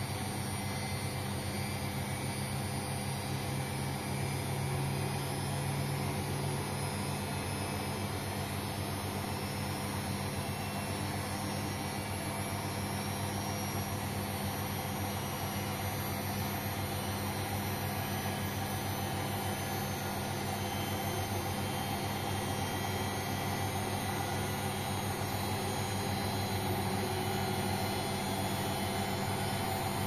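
Bosch Maxx 7 VarioPerfect front-loading washing machine spinning its empty drum at high speed during a drum-cleaning cycle: a steady motor hum and whine with a rushing noise, the higher whine slowly rising in pitch.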